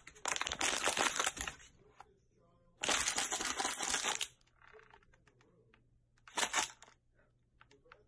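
Plastic water bottle being crinkled by hand in three bursts of crackling: two of more than a second each, then a short one.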